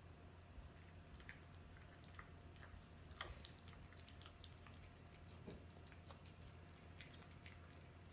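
Cats eating dry kibble from bowls: faint, irregular crunches and clicks of chewing.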